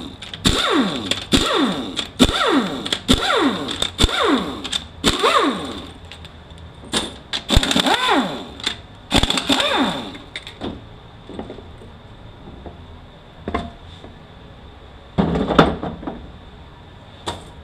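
Pneumatic air ratchet running out the valve body bolts of a 4F27E automatic transmission in quick bursts, each one falling in pitch as the motor winds down. After about ten seconds the bursts stop, and a few metal knocks and a clatter follow as the valve body comes off the case.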